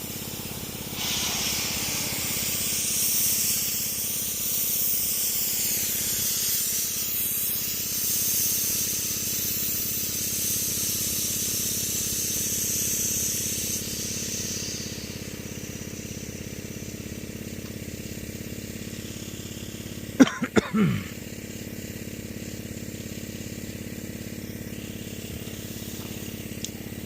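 Air hissing out of a baler tire as it is let down, a steady hiss that starts about a second in and dies away after roughly fourteen seconds. An engine idles steadily underneath, with a few brief sharp sounds about twenty seconds in.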